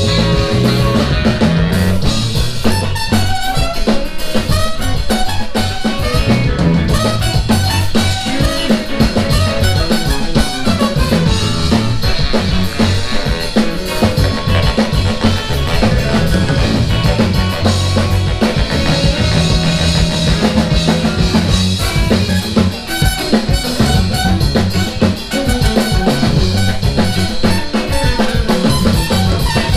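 Live band playing through a stage PA, a drum kit keeping a steady beat under bass and other instruments.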